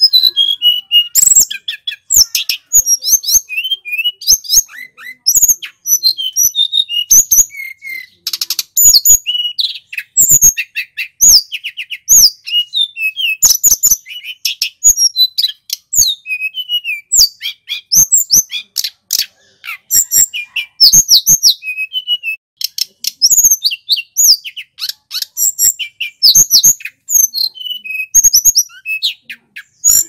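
A male tledekan gunung (hill blue flycatcher) singing loudly and without letup: rapid, varied high whistled notes that sweep up and down, mixed with sharp ticks, broken only by a few brief pauses.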